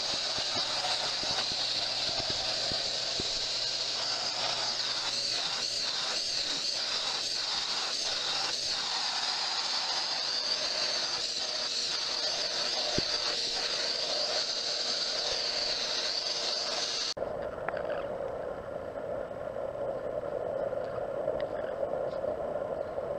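Vacuum cleaner running steadily with its nozzle held against a cat's fur, its sound wavering several times partway through. It cuts off abruptly about seventeen seconds in, and a lower, steadier noise takes over.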